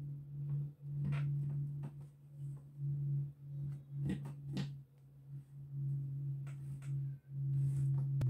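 A steady low hum throughout, with a handful of short scratches and taps from hands marking lace fabric and handling a tape measure on a wooden table.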